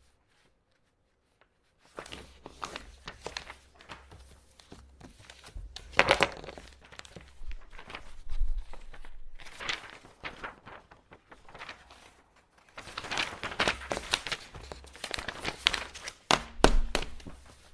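Sheets of paper being handled and folded: irregular crisp rustling and creasing that starts after a quiet second or two and comes in bouts, with a couple of dull thumps.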